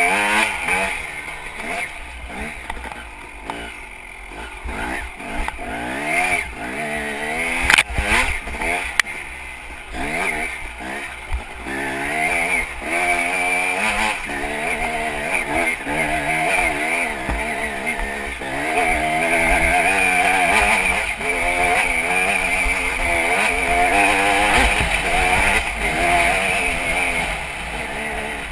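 Dirt bike engine under load on a hill climb, revving up and down as the throttle is worked, its pitch rising and falling about once a second. It is steadier and louder late on, with one sharp knock about eight seconds in.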